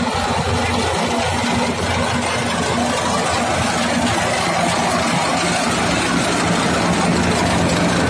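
Yanmar rice combine harvester running steadily while it cuts standing rice: a loud, even engine drone with its harvesting machinery whirring over it.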